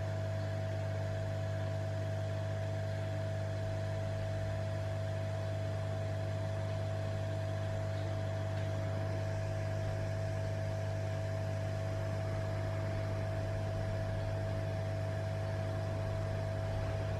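Hot-air rework station blowing heated air through its nozzle: a steady fan hum with a constant whine and an even hiss of air, unchanging throughout.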